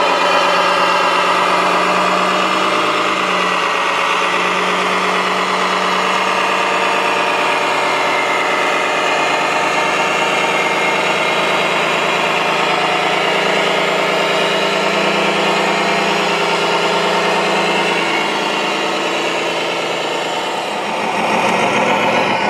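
Radio-controlled construction machine running steadily, a continuous engine-like drone that dips briefly near the end and then picks up again.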